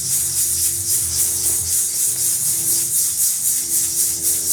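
A hand rattle or shaker shaken in a steady, quick rhythm, over low held tones.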